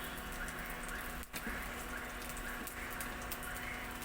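Spices frying in hot oil in a kadai: a steady sizzle with fine crackles.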